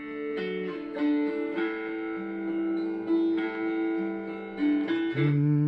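Opening theme music ending: held chords and melody notes that change about once a second, with a new low chord near the end.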